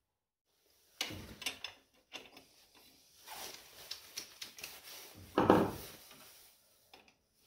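Metal hand tools clinking and rattling as a socket extension bar is taken off a ratchet wrench and handled, with a louder knock about five and a half seconds in.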